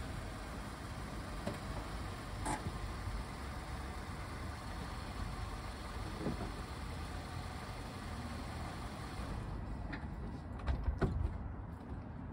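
Car door of a Nissan Juke being opened, a cluster of latch clicks and knocks about ten seconds in, the loudest sound here. Under it a steady low rumble that thins out shortly before the door opens.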